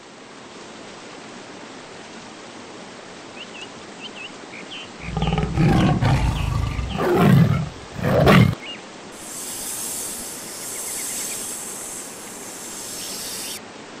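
Steady rush of a stream over small waterfalls, with faint high chirps now and then. About five seconds in, a large animal gives a deep roar three times over some three seconds. The roars are the loudest sound here.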